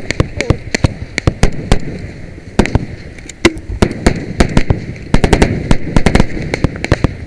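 Several rifles firing rapid, irregular single shots that overlap one another, thinning a little around the middle before picking up again.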